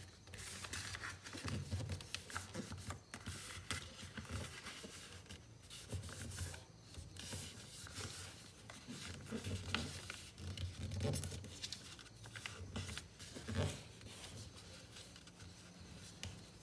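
A sheet of A4 coloured paper being folded and creased by hand on a table: irregular rustling, crinkling and scraping of the paper, with soft low thumps.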